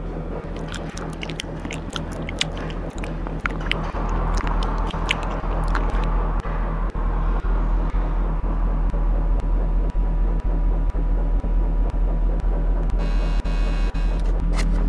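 Ambient electronic soundtrack: a steady low drone with scattered clicks and crackles over the first few seconds, and a brighter hiss shortly before the end.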